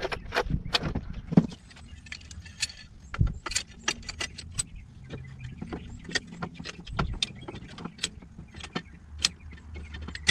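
Irregular metallic clicks and clinks from hand tools as a threaded screw-type tool is fitted and handled on the front steering knuckle at the upper ball joint.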